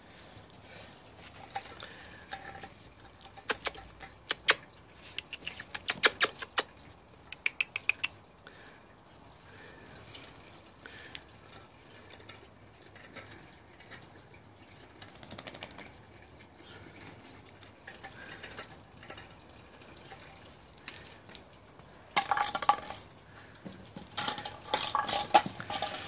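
Puppies scampering on paving slabs: quick runs of sharp claw clicks and patters, with a couple of louder scuffling bursts near the end.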